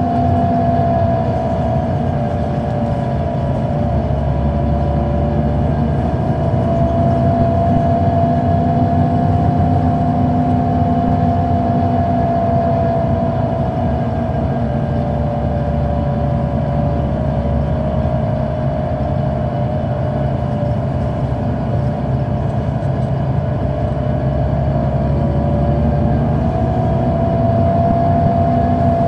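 Inside a 2004 Neoplan AN459 articulated bus under way, its Caterpillar C9 diesel engine and ZF automatic transmission running. There is a low rumble and a steady whine that slowly drops a little in pitch and rises again near the end.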